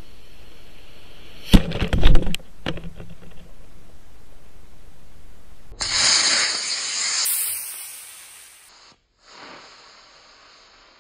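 Model rocket flight: a steady hiss from the onboard camera, broken about a second and a half in by a burst of loud sharp cracks and bangs. About six seconds in, an Estes model rocket motor ignites and fires with a loud hiss as the rocket lifts off, fading away over a couple of seconds as it climbs.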